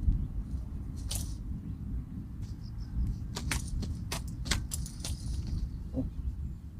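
Wind buffeting the microphone as a steady low rumble, with a handful of sharp clicks and clinks, mostly three to five seconds in.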